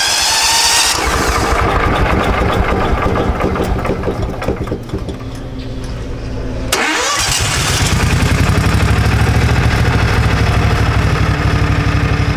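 Gasoline engine of an insulation vacuum starting and running, the blower's whine rising as it spins up. About seven seconds in it spins up again with another rising whine and then runs louder and steady.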